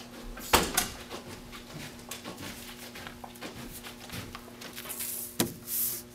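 Scattered knocks and clicks of objects being handled in a small room, with a sharp knock about half a second in and a loud one near the end, followed by a short rustle. A faint steady hum lies underneath.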